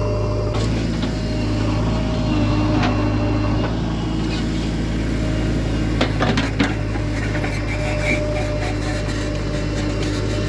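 Heavy diesel engine running steadily, with a few sharp metallic knocks about six seconds in.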